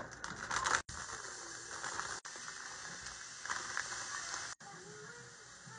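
Riced cauliflower sizzling on a hot flat-top griddle as it is poured out, with a plastic bag crinkling near the start. The sizzle has a few brief gaps.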